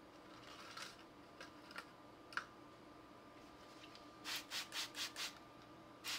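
Plastic trigger spray bottle squirted five times in quick succession, a short hiss each, with another squirt near the end, likely wetting a cotton swab for smoothing modelling putty. A few light handling clicks come before.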